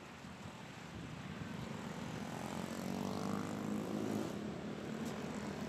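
Engine drone of a passing motor, a steady hum that grows louder about halfway through.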